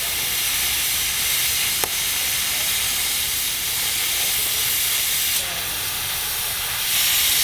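Gas cutting torch flame hissing steadily as it cuts metal, with one sharp click about two seconds in. The hiss drops a little just past the middle and swells louder again near the end.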